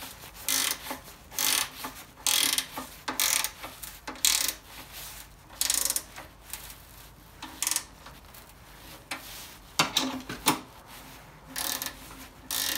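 Hand ratchet clicking in short repeated bursts as nuts are run down onto the stainless steel carriage bolts that fix the wear strip to a snow plough blade. Two sharp metal knocks come about ten seconds in.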